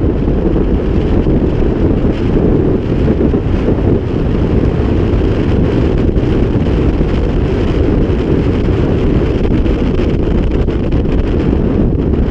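Loud steady wind noise on the microphone: airflow buffeting it as a low, even rumble during a paraglider flight.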